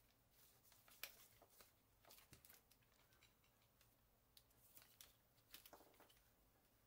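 Near silence, broken by a few faint clicks as the plastic test-lead probes and their tip caps are handled.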